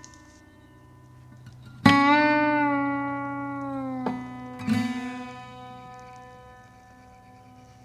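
Background music: a slow guitar piece, single notes plucked and left to ring out, one about two seconds in and another near five seconds, fading away after.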